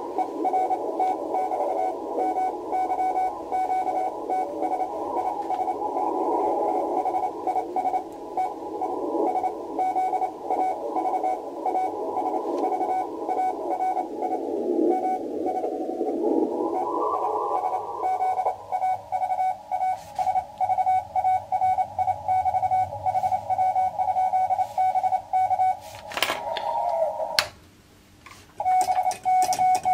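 Incoming Morse code (CW) heard through a ham radio receiver: a single-pitch tone keyed on and off in dots and dashes over band hiss. Near the end the hiss drops out and a cleaner keyed sidetone begins as the operator starts sending with his paddle key.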